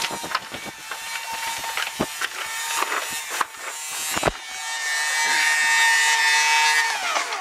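Small electric utility transfer pump draining a water heater, running with a steady whine. About halfway through it becomes a louder squeal as it sucks air, the sign that the tank is empty. Its pitch sags near the end, with a couple of knocks along the way.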